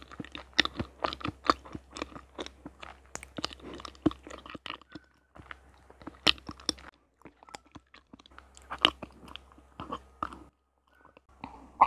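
Close-miked chewing of a soft yellow cheesecake: wet, sticky mouth sounds with many small clicks. The chewing pauses briefly a little after the middle and again near the end.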